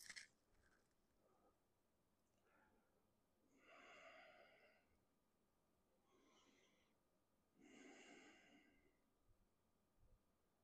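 Faint, slow breathing by a person holding a yoga pose: three soft breaths about 4, 6.5 and 8 seconds in, the first and last longer than the middle one.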